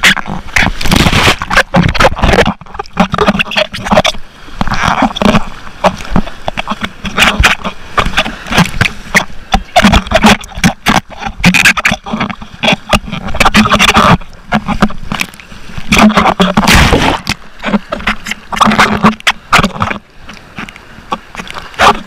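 Ocean surf splashing and washing over an action camera held in the breaking waves, with water striking the camera housing in loud, irregular gushes.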